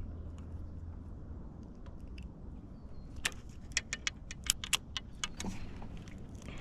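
Light clicking and rattling of fishing tackle being handled: a quick, irregular run of sharp clicks starting about three seconds in and lasting a couple of seconds, over a low steady rumble.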